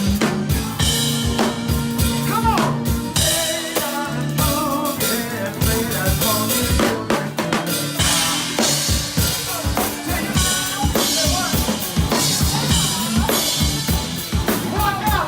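Live rock band playing, with the drum kit out front: a steady beat of kick drum, snare and rimshots over bass and other instruments.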